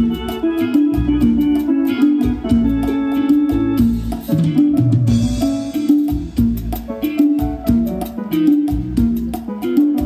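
Live cumbia band playing on stage: a drum kit keeping a steady, even beat under electric bass and keyboard.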